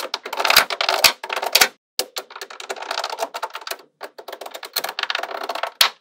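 Small metal magnetic balls clicking and clattering rapidly as chains of them are laid down and snap onto a sheet of magnetic balls. The clicking comes in dense runs, with brief pauses about two seconds in and just before four seconds.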